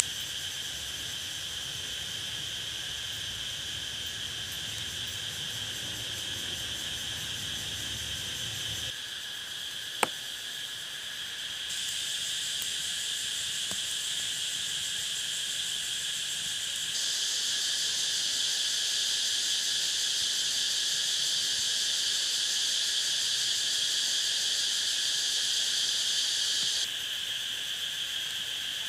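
Steady, high-pitched chorus of jungle insects, its level jumping up abruptly twice in the middle and dropping near the end. A single sharp click about ten seconds in.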